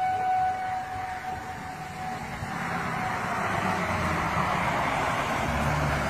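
Outdoor tornado warning siren holding a steady tone that fades away in the first second or so, then a truck with a flatbed trailer passing on the road, its tyre and engine noise building up toward the end.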